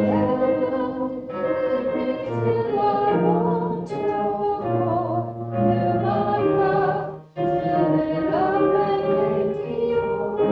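Church music: voices singing long, held notes with vibrato over accompaniment, with a brief break between phrases about seven seconds in.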